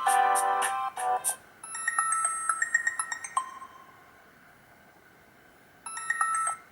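Ringtones from a Black Fox B5 phone's speaker. A melodic ringtone ends about a second in, then a short high, tinkling ringtone plays for about two seconds, stops, and starts again after a gap of about two and a half seconds.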